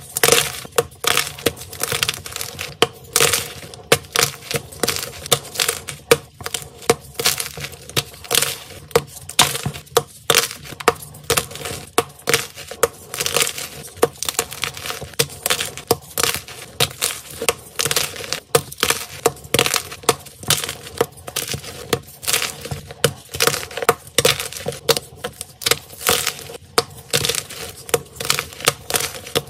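Blocks of crunchy white gym chalk (magnesium carbonate) being snapped and crushed between the hands: a constant run of dry, sharp cracks and crunches.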